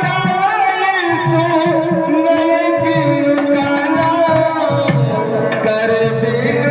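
Indian devotional music: a singer's melodic line over a sustained melody accompaniment, with a hand drum keeping the beat.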